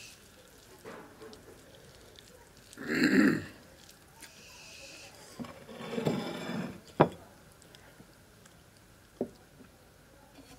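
Close-up eating sounds of a person chewing a mouthful of pulao with mouth and lip noises. A loud noisy burst comes about three seconds in and another around six, with sharp clicks near seven and nine seconds.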